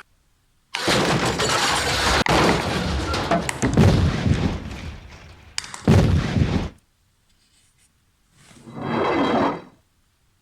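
Sound effects: a long crash about five seconds long, with a sharp crack in the middle of it, then a shorter crash, then a noise that swells up and fades near the end.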